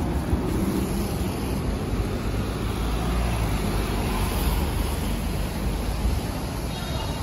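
City street traffic: the low rumble of a motor vehicle running close by over steady street noise, swelling in the middle and easing off near the end.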